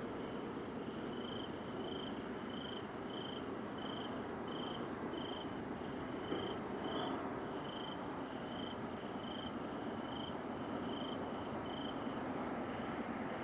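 A night insect chirping in short, even pulses, about one and a half a second, over a steady low rumble from the sky whose source is unknown.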